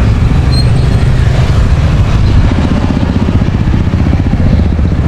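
Loud, steady low rumble of road traffic, motorbikes and cars running.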